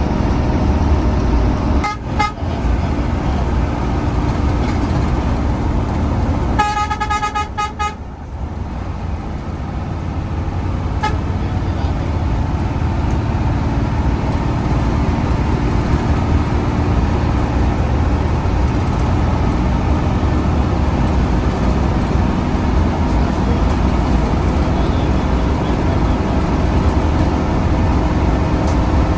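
Steady engine and road drone inside an intercity bus's cabin. A horn gives a short toot about two seconds in, then a burst of rapid pulsing toots lasting about a second and a half around seven seconds in. Just after the burst the drone dips briefly and builds back up.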